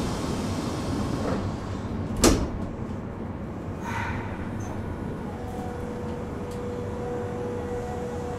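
Passenger compartment of a Nagoya subway 3000 series chopper-control train stopped at a station: a steady rumble, broken about two seconds in by a single loud knock from the sliding doors reaching the end of their travel. About five seconds in, a steady hum comes in.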